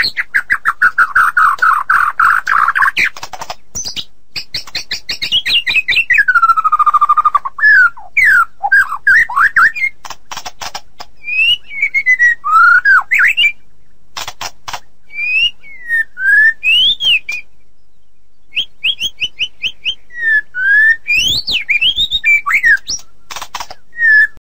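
White-rumped shama (murai batu) singing a varied song: a fast rapid trill of repeated notes, then clear whistled notes sliding up and down, broken by sharp clicking notes. It stops abruptly near the end.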